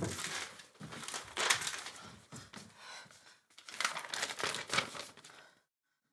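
A dull thump, then paper rustling and crinkling in two stretches as a sheet of paper is handled and unfolded.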